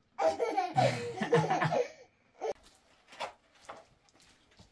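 Laughter, a loud burst lasting under two seconds, followed by a few short faint sounds.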